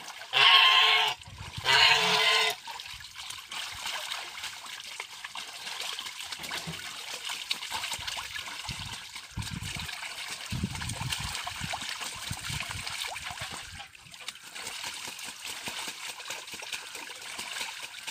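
Domestic geese splashing as they bathe in a shallow pool, water sloshing and splashing steadily. Loud goose honks in the first two seconds or so.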